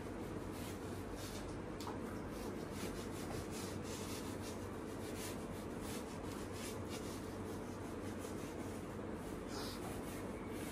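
Wide flat paintbrush scrubbing and dabbing blue paint onto a large canvas in quick, irregular, scratchy strokes, a few a second, over a faint steady hum.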